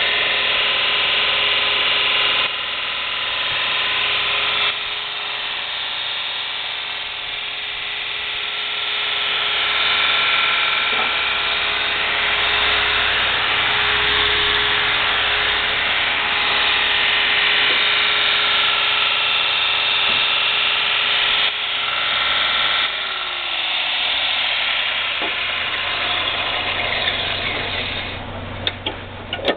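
Kalamazoo S4S belt sander running unloaded: its Baldor electric motor hums and the abrasive belt whirs steadily.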